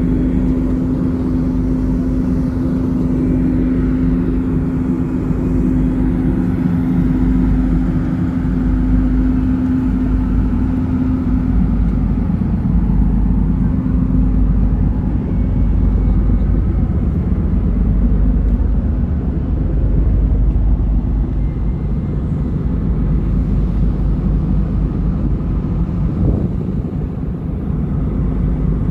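Steady low drone of a passenger car ferry's engines heard inside the passenger cabin, with a steady hum tone over it that fades out about a dozen seconds in.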